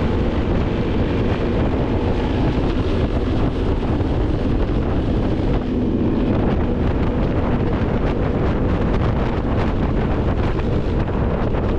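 Wind buffeting the microphone over the steady running of a moving off-road vehicle's engine, a loud, unbroken rush.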